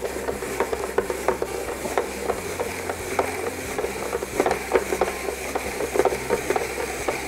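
Hand-crank spiralizer cutting a raw sweet potato into spiral noodles. The crank and blades make a continuous rasping, with many irregular sharp clicks as the hard potato is sliced.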